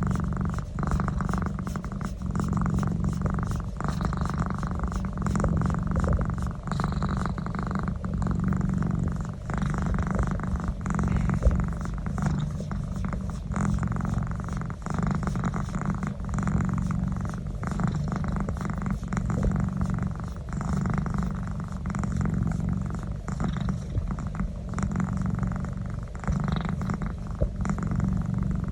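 Domestic cat purring steadily as its neck is massaged: a continuous low, fast-pulsing rumble.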